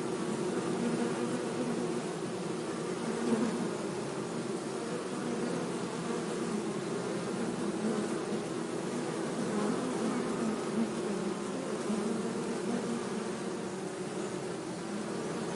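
Bees buzzing in a steady, continuous hum that wavers slightly in pitch.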